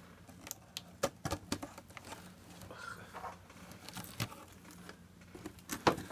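Packing tape on a cardboard box being slit with a pen and the flaps pulled open onto crumpled brown packing paper: scattered ticks, scrapes and crinkles, with a few sharper knocks.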